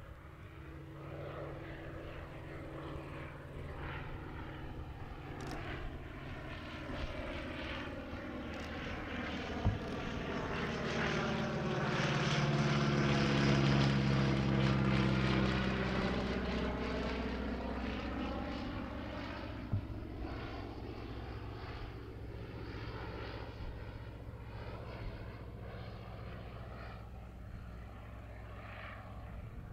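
Focke-Wulf Fw 44 J Stieglitz biplane's seven-cylinder Siemens-Halske Sh 14 radial engine and propeller running steadily in a display flypast. It grows louder to a peak about halfway through as it passes overhead, drops in pitch, then fades as it climbs away.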